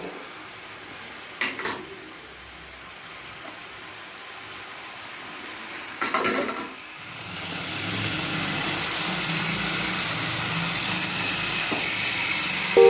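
Hot oil with bay leaves and a dried red chilli sizzling in a karahi. The sizzle grows louder about seven seconds in as the oil bubbles hard, with two brief knocks before that.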